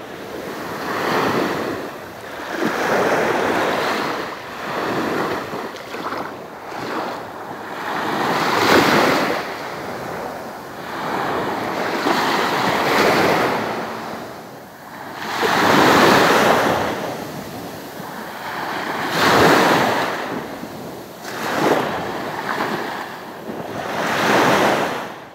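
Small waves washing onto a sandy beach, each swell of hiss rising and fading every few seconds.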